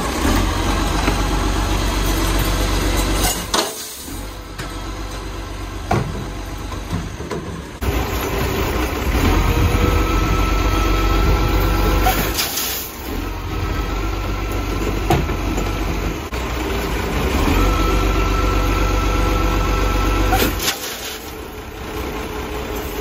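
Heavy diesel garbage truck running while its hydraulic side-loader arm lifts and tips a wheelie bin: the engine runs up loud with a steady whine in long stretches as the lifter works, drops back in between, and a few sharp knocks mark the arm and bin moving.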